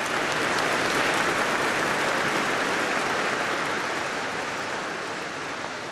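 Audience applauding steadily, swelling within the first second and slowly dying down toward the end.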